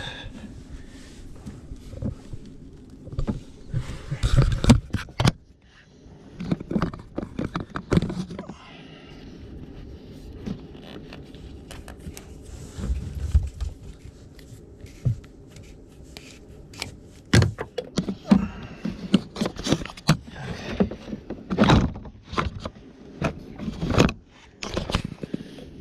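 Hands-on work at a furnace: repeated knocks, clicks and scrapes of tools and parts being handled, in irregular clusters over a steady low hum.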